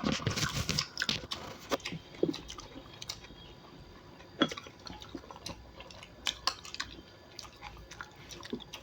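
A person chewing crunchy pork sausage studded with cartilage: crisp crunches and clicks, dense in the first second or so, then scattered and irregular.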